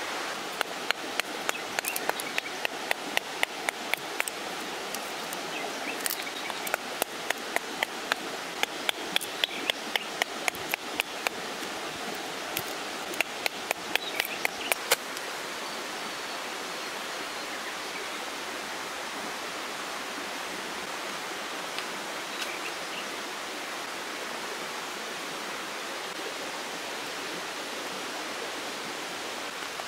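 A knife working dry wood into kindling: runs of sharp cracking strokes, about two to three a second, for the first half. Under and after them, the steady rush of a nearby river.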